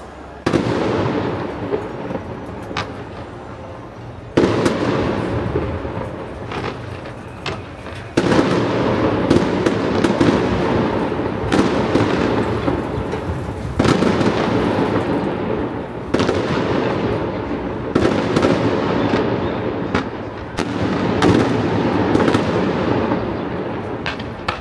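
Fireworks display: about six heavy bursts a few seconds apart, each followed by a fading rumbling tail, with many sharp pops and bangs throughout.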